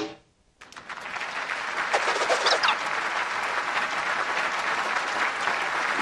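Audience applause from a cartoon crowd, starting about half a second in and holding steady, with one brief high whoop or whistle partway through.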